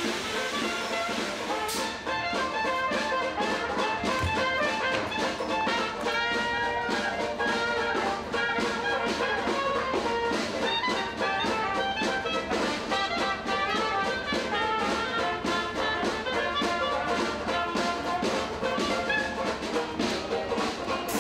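Traditional jazz band playing, with trumpet and clarinet over a steady drum beat.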